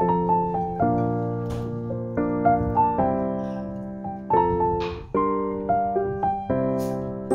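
Background piano music: a melody of struck notes and chords, each one fading after it sounds.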